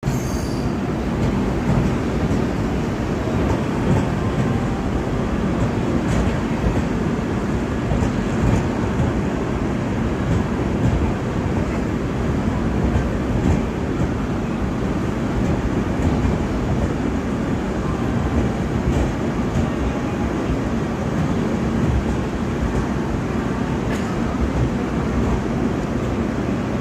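Indian Railways Rajdhani Express train running: a steady rumble of wheels and carriages, with faint clicks now and then.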